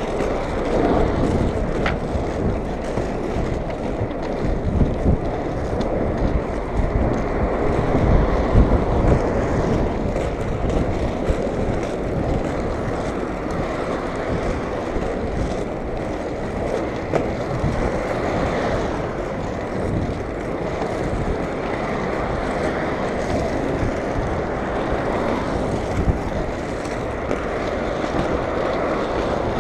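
Powerslide Hardcore Evo 2.0 inline skate wheels rolling on asphalt, a steady rolling noise, with wind on the microphone.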